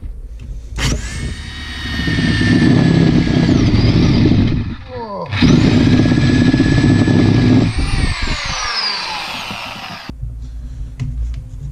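Corded reciprocating saw cutting into the rubber-and-metal bushing of a front lower control arm held in a vise, to get the old bushing out. It runs in two bursts with a high motor whine over the cutting noise, winding down in between and stopping near the end.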